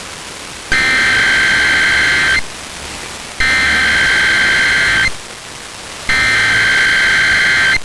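Emergency Alert System SAME header: three bursts of buzzing digital data tones, each about a second and a half long, with radio hiss in the gaps between them. The bursts mark the start of a new alert.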